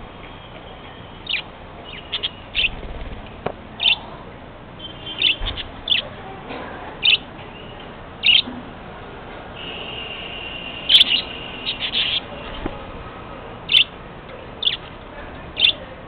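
Caged budgerigars calling: short, sharp high chirps about once a second, with a stretch of steady warbling chatter from about ten seconds in.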